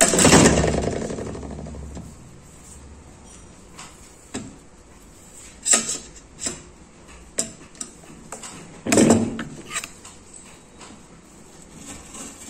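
Knife and aloe vera leaf knocking and tapping against a stainless-steel tray: a loud knock at the start that rings and fades over about two seconds, then scattered lighter taps, with another strong knock about nine seconds in.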